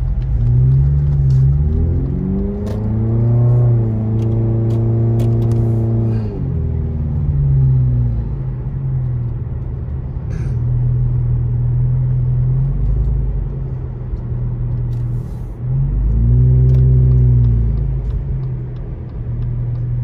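Car engine heard from inside the cabin as the car pulls away and accelerates, rising in pitch, holding, then falling away about six and a half seconds in; it rises again about sixteen seconds in. A light regular ticking runs through the first six seconds.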